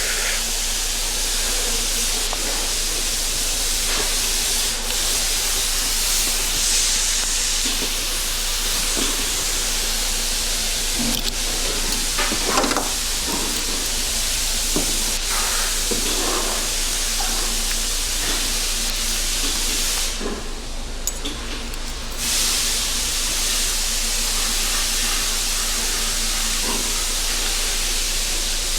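A steady, loud hiss, with a few faint metallic clicks in the middle. The hiss briefly drops out about two-thirds of the way through.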